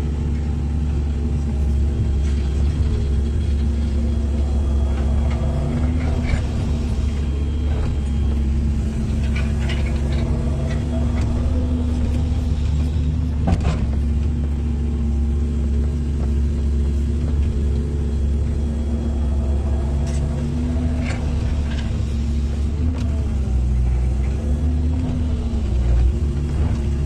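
Hydraulic excavator's diesel engine running steadily, its low drone shifting in pitch now and then as the machine works, with a few short sharp knocks, the loudest about halfway through.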